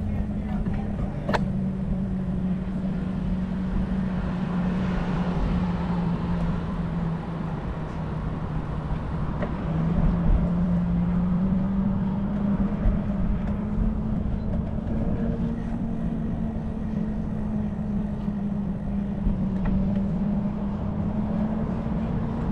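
Bicycle rolling along a paved sidewalk: a steady hum that sags in pitch midway and climbs again as the bike picks up speed, over a low rumble. One sharp click about a second in.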